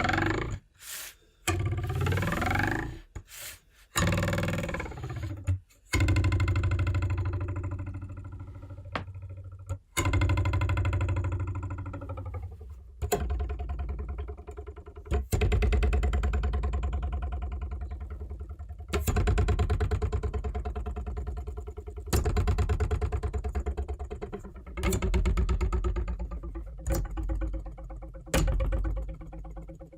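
Metal ruler twanged over the edge of a desk, plucked again and again: each pluck gives a buzzing, rattling tone that rings and dies away over two to three seconds. In the first few seconds the pitch slides up and down between plucks.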